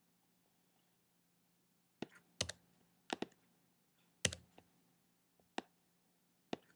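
Scattered sharp clicks at a computer, about ten in all, some in quick pairs, as on-screen items are selected and deleted.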